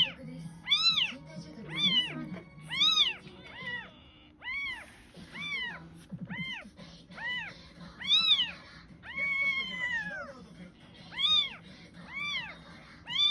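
Young kitten meowing over and over, high-pitched cries that rise and fall, about one a second, with one longer, lower cry a little past the middle.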